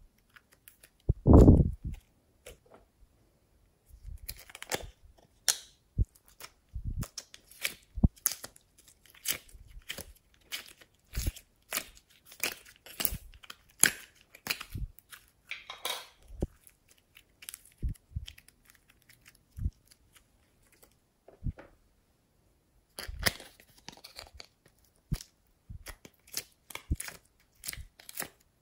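Slime being stretched, folded and pressed by hand, giving quick irregular sticky pops and crackles. A louder dull thud comes about a second and a half in.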